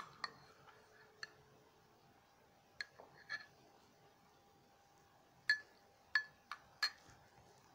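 About eight short, sharp clicks or clinks at irregular intervals, four of them close together in the second half, over a faint steady high-pitched tone.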